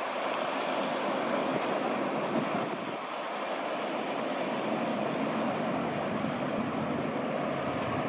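Small waves breaking and washing on the shore, a steady rushing noise, with some wind on the microphone.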